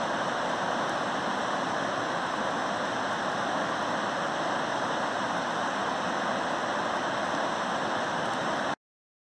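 Rain-swollen creek rushing over rapids, a steady even roar of white water that cuts off suddenly near the end.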